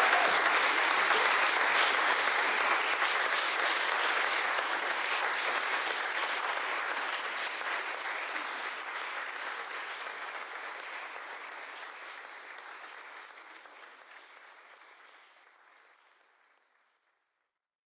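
Audience applauding, the sound gradually fading away to silence near the end.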